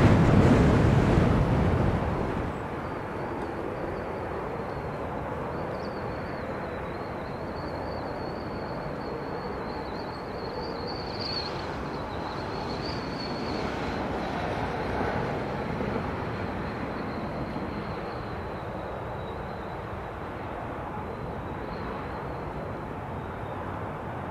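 Wind buffeting the microphone for about the first two seconds, then a steady rush of wind and distant aircraft noise with a faint, slightly wavering high whine from an ATR 72 turboprop airliner on approach.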